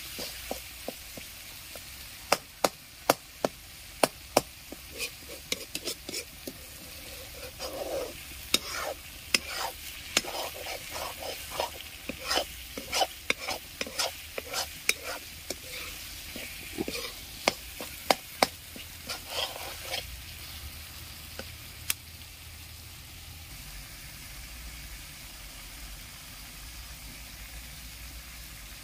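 A steel slotted spoon clinking and scraping against a metal kadai as a thick fish masala is stirred while it fries, over a steady sizzle. The clinks stop about twenty seconds in, leaving the sizzle alone.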